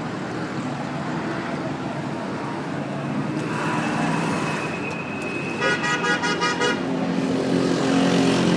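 Busy city street traffic: vehicle engines and road noise, with a car horn honking in a quick run of beeps a little past halfway. A low-pitched vehicle engine grows louder near the end.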